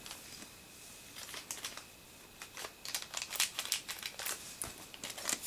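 A small packaging wrapper crinkling as it is handled and opened, quiet at first and then a run of dense crackly rustles through the second half.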